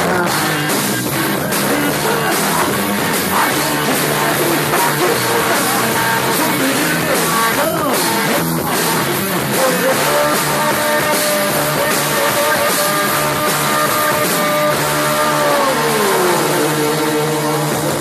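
Live punk rock band playing loud: distorted electric guitars, bass and a drum kit, with a lead singer. A long held note slides down near the end.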